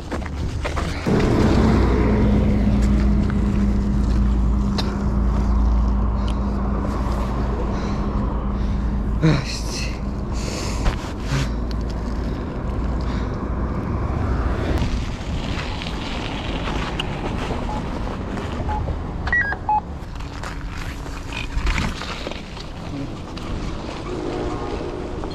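Wind buffeting the microphone of a camera worn by someone riding a dirt-jump bike over icy, slushy pavement, with a low rumble of rolling tyres. A steady hum runs for several seconds near the start, and a few sharp clicks and knocks come from the bike and the rough surface.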